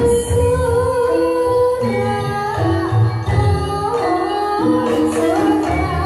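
Live Javanese gamelan music accompanying a jathilan dance: a sung melody that slides between held notes over a steady beat of low drum strokes and sustained pitched percussion.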